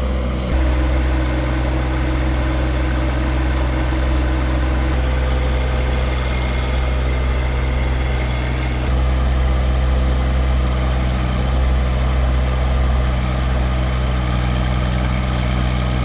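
John Deere 1025R compact tractor's three-cylinder diesel engine running steadily, a continuous low hum with no breaks.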